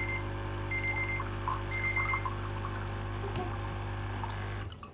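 Dolce Gusto Piccolo XS capsule machine's pump running with a steady hum as it pushes water through during the first-use rinse, cutting off suddenly near the end. Three short high beeps, like a timer alarm, sound in the first two seconds.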